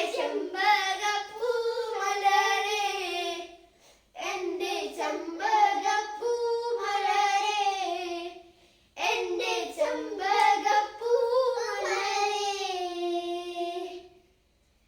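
A child's voice singing a Malayalam folk song (naadan paattu) unaccompanied, in three phrases of about four seconds each with short breaths between. The last phrase fades out just before the end.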